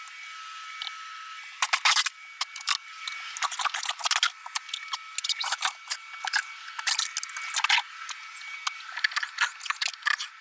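Irregular cracking, snapping and scraping as the interior panels of a motorcoach shower are pried and ripped apart, over a faint steady high tone.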